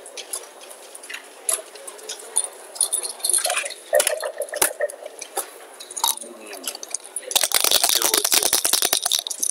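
Hard backgammon checkers clicking against each other and onto the board as a move is made, then near the end a fast rattle of about two seconds, dice shaken in a dice cup.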